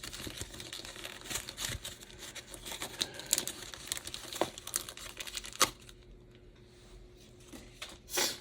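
Small plastic parts package crinkling and rustling as it is handled, with scattered light clicks; it goes quieter for a couple of seconds, then rustles once more near the end.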